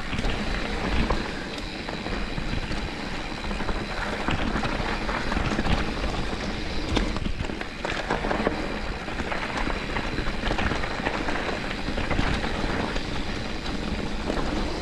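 Mountain bike riding down a rough, rocky singletrack: tyres rumbling over dirt and rock, with frequent short clatters and rattles from the bike, over a steady low rumble of wind on the microphone.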